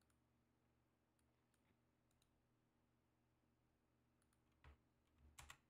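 Near silence with faint room hum, broken near the end by a few soft computer mouse clicks: one single click, then a quick pair.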